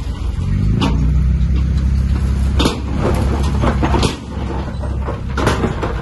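Heavy diesel earthmoving machine running under load. The engine picks up about a second in and eases back about four seconds in, with sharp knocks and clanks several times.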